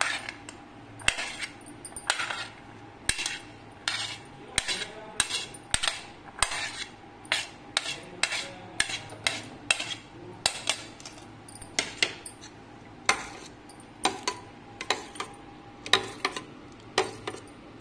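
Metal spoon clinking and scraping against a ceramic plate, about two sharp clinks a second at an uneven pace, as pomegranate seeds are pushed off it into a bowl.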